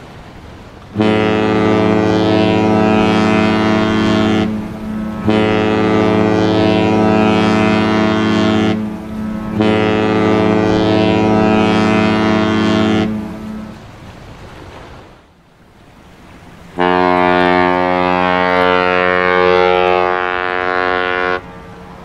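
Cruise ship Marella Explorer's horn sounding three long blasts of about four seconds each with short gaps between. After a pause a second, different-sounding ship horn gives one long blast of about four and a half seconds.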